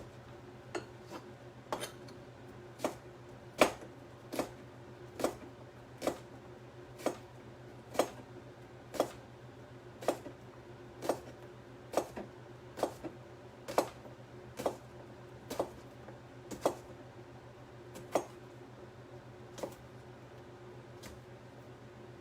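Kitchen knife chopping vegetables on a cutting board: evenly paced cuts, about one a second, which stop a couple of seconds before the end.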